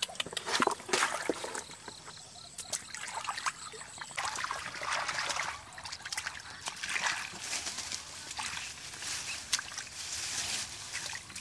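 Shallow muddy water splashing and sloshing irregularly as hands grope through it and into the mud to catch fish, with the sharpest splashes about a second in.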